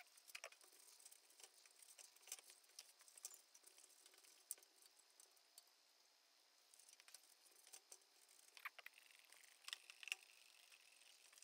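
Faint rubbing and small clicks of a rag wiping down the jukebox record changer's top plate, with a few short spray-bottle squirts of cleaner near the end.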